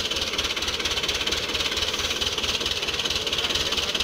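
FIAT 640 tractor's diesel engine running steadily, with an even, rapid clatter.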